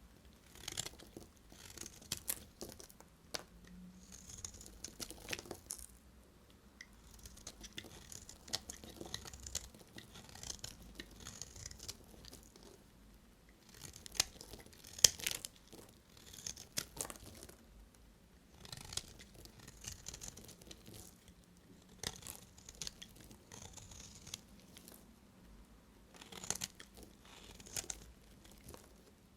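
A knife cutting into bars of soap: crisp crackling and scraping strokes, one every second or two, with a louder crunch near the middle.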